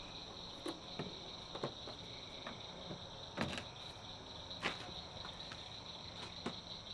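Crickets chirping steadily, with a few faint scattered clicks and knocks.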